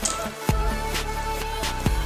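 Background music with a steady electronic beat: sustained synth tones over a kick drum hitting about twice a second, the bass dropping out briefly just before half a second in.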